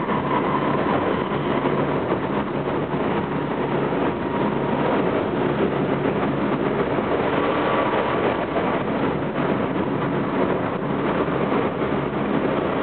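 Running noise inside a Tokyo Metro 07 series electric train car travelling at speed: a steady rumble of wheels on rail, with a faint thin whine that comes and goes.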